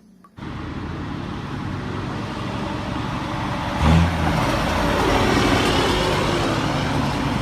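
Truck engine running steadily, with a brief louder surge about four seconds in; the sound starts and stops abruptly.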